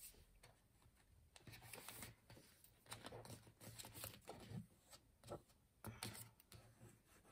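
Faint rustling and rubbing as a paper planner in a clear plastic cover is closed and handled by hand: a string of short, soft scrapes and taps.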